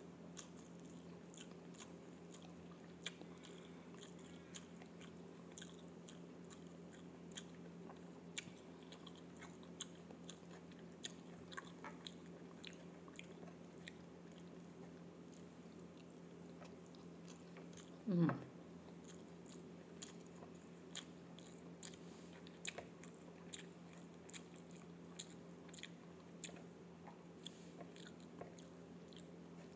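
Close-miked eating sounds: soft chewing and small mouth and lip clicks as a person eats fried chicken and rice by hand, over a steady low hum. About 18 seconds in comes one short voiced sound from the eater.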